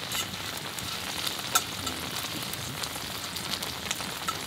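Pork belly (samgyeopsal) sizzling in a hot pan: a steady frying hiss with scattered sharp pops of spitting fat.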